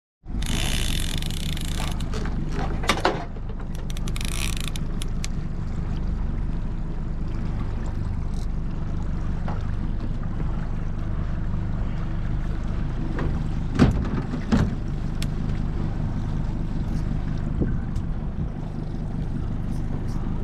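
Yamaha 60 outboard motor running steadily, a low even hum. Brief hissy bursts come in the first few seconds, and two sharp knocks sound about two-thirds of the way through.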